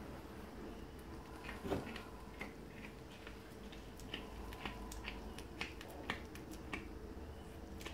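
Scattered small clicks and crinkles of a roll of bandage tape being unwound and pressed around a dog's chest, with one louder snap about two seconds in.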